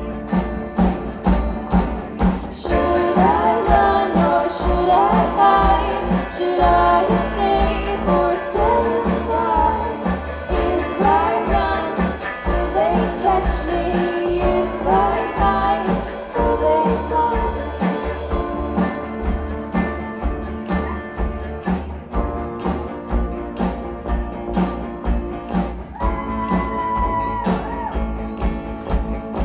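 Live rock band playing: electric guitars, bass, keyboard and a steady drum beat, with a girl's lead vocal singing through the first half, after which the band plays on without singing.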